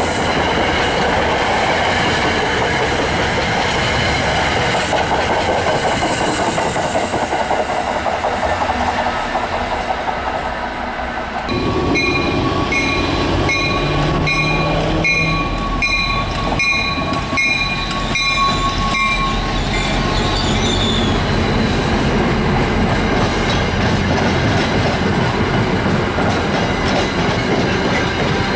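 MBTA commuter coaches rolling past with wheels clattering. About twelve seconds in, the sound changes abruptly to an approaching MBTA diesel locomotive sounding its horn while a bell strikes steadily, about once every three-quarters of a second, for some eight seconds. Its coaches then roll by with wheel noise.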